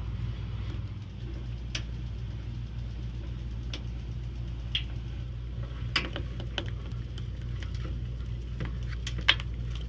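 Steady low engine hum, with scattered sharp clicks and knocks.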